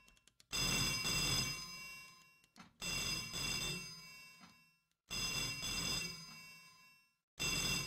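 A telephone bell ringing four times, about two seconds apart, each ring dying away before the next.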